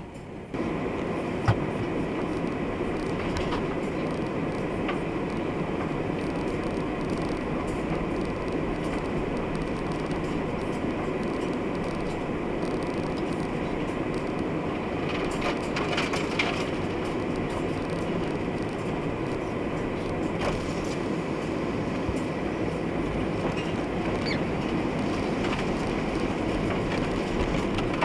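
Pickup truck running and rolling slowly over icy, slushy road, a steady rumble of engine and road noise heard inside the cab, with a sharp click about a second and a half in.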